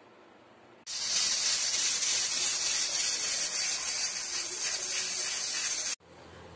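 Pressure cooker at full pressure, letting off steam past its weight valve: a loud, steady hiss that starts about a second in and cuts off suddenly near the end.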